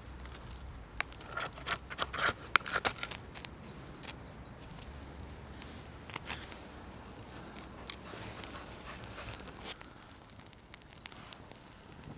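A steel knife blade scraping at birch-bark tinder in a quick run of sharp scrapes. After that comes the crinkle and rustle of dry tinder and pine needles being handled, with small crackles near the end as the tinder catches fire.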